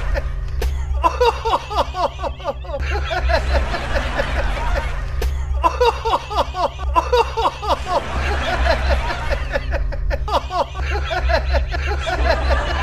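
Men laughing in several bouts of quick, repeated bursts, over a steady low hum.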